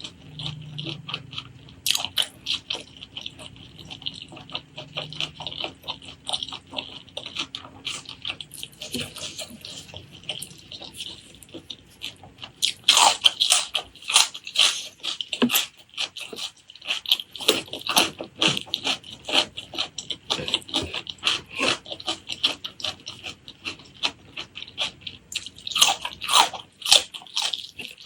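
Close-miked chewing of braised pork leg curry and rice: wet mouth clicks and smacks coming thick and irregular, growing louder and busier about halfway through.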